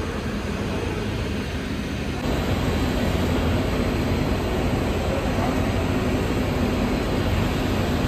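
Steady rushing machinery noise with a low hum from a continuous biomass carbonization furnace, its gas burners and blowers; it gets louder about two seconds in.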